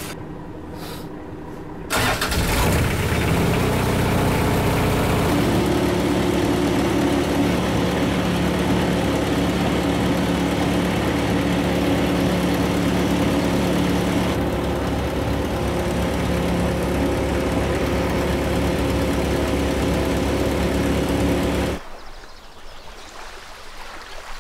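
Fishing launch's inboard engine catching and starting about two seconds in, then running steadily, its note shifting a few seconds later. It cuts off abruptly near the end.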